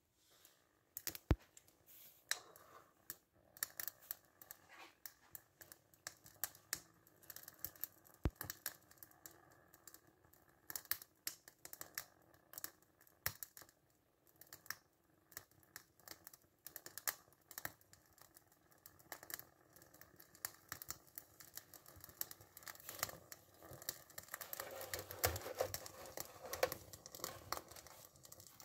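Irregular faint clicking and crackling from a small toy steam engine's boiler and burner as it heats up; the crackle grows denser near the end.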